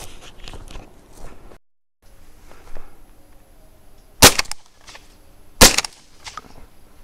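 Two shotgun shots about a second and a half apart, each ringing out briefly.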